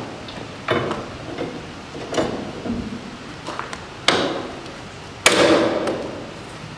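Steel tie-down chain and chain binder clanking as the binder is levered tight with a cheater pipe: four separate metallic clanks, the loudest about five seconds in, ringing briefly after it.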